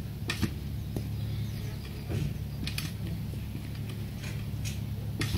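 Steel hand tiller worked in garden soil: several short, sharp clicks and scrapes as its tines are stepped in and levered. A steady low hum runs underneath.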